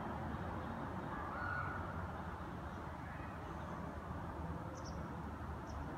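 Steady outdoor background rumble, with a short bird call about a second and a half in and two faint high chirps near the end.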